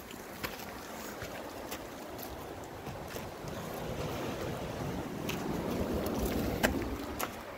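Wind rushing over the phone's microphone, swelling through the middle and easing near the end, with scattered clicks and scrapes of loose rock and gravel under hands and feet on a crumbling cliff path, one sharper knock near the end.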